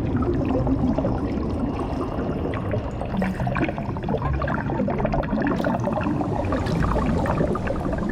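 Underwater sound effect: a steady low rumble with dense small bubbling and gurgling pops over it.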